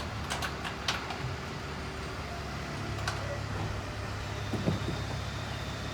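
Steady low hum of an engine running, with a few light clicks and knocks in the first second.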